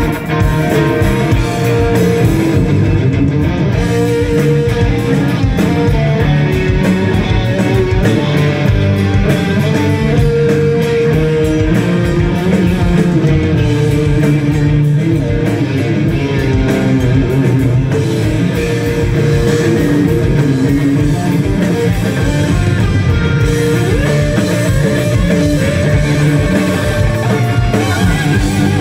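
Live rock band playing an instrumental passage through a PA: electric guitar, bass guitar and drum kit, loud and continuous, with no singing.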